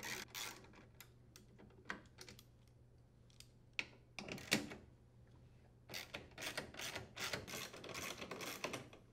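Socket ratchet clicking as it backs out screws: a few short runs of clicks, then a longer, faster run of clicks from about six seconds in.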